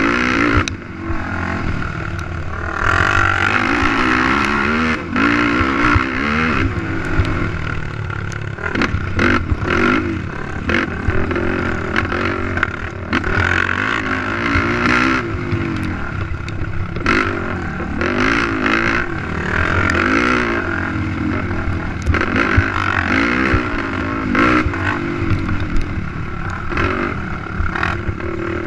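Racing ATV engine revving up and down repeatedly under hard throttle, with scattered knocks and rattles from the rough track.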